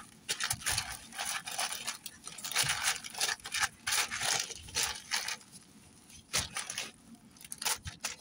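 Plastic slow-cooker liner crinkling and rustling as gloved hands press and turn raw cubed steak to work the seasoning in, in irregular bursts that ease off after about five seconds apart from a few sharp rustles.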